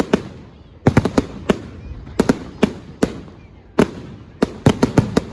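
Fireworks display: aerial shells bursting in about fifteen sharp bangs, coming in quick irregular clusters, each with a short echoing tail.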